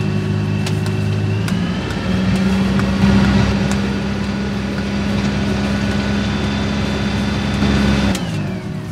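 Sailing yacht's inboard diesel engine running under way while manoeuvring; the revs step up about a second and a half in, hold steady, then fall away near the end.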